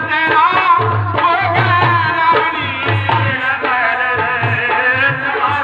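Rajasthani-style folk ensemble playing: a two-headed hand drum beats a steady rhythm under a bowed folk fiddle and sung melody that bend and glide in pitch.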